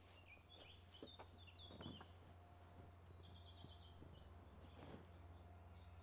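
Near silence with faint songbirds: many short high chirps and little trilled phrases, over a steady low hum.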